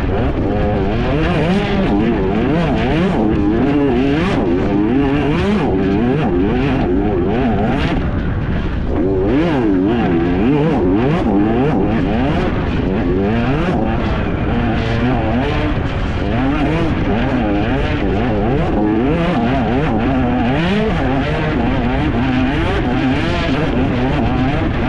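Enduro dirt bike engine revving up and down continually with the throttle at racing pace, with frequent short knocks over it.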